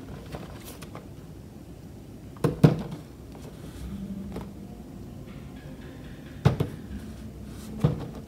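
Cardboard figure box with a plastic window being handled and turned over by hand, knocking dully against the tabletop three times: loudest about two and a half seconds in, again about six and a half seconds in and just before the end, over a steady low hum.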